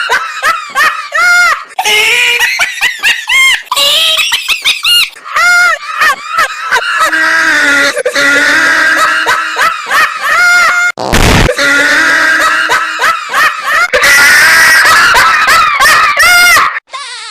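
Loud, high-pitched human laughter: a string of rapid, shrieking "ha" syllables, with a short noisy burst about 11 seconds in.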